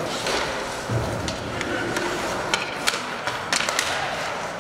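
Ice hockey play in an arena: a steady wash of rink noise with several sharp clacks of sticks and puck in the second half, and skate blades scraping the ice.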